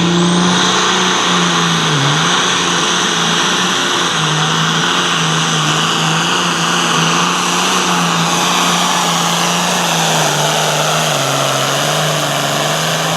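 Hot farm class pulling tractor's turbocharged diesel engine running hard at a steady high pitch under load, with a brief dip about two seconds in and a slight sag near the end.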